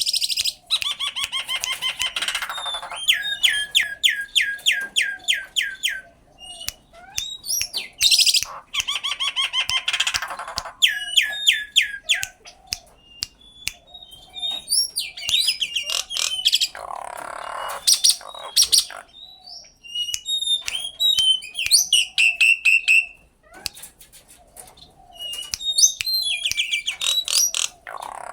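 Common myna calling: runs of quickly repeated notes mixed with sharp whistles and harsh squawks, coming in bursts with short pauses between them.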